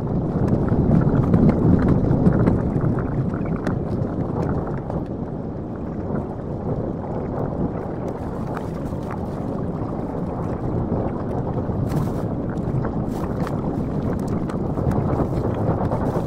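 Steady rumble and rushing of a moving train heard from inside the passenger car, slightly louder in the first few seconds, with a few faint clicks.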